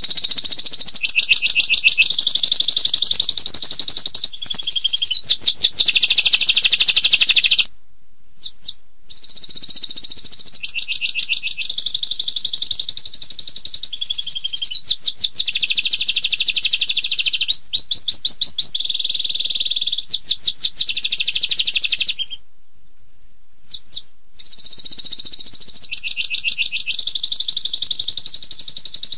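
Domestic canary singing long, high-pitched song phrases made of rapid repeated notes and rolling trills, pausing briefly twice.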